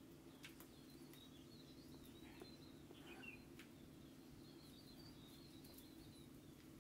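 Near silence: a low steady hum with faint bird chirps in the background and a few soft taps.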